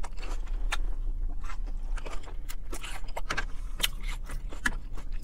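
Close-miked chewing of lettuce salad: a rapid, irregular run of crisp crunches and wet mouth clicks, with a fork clinking and scraping on the plate, over a low steady hum.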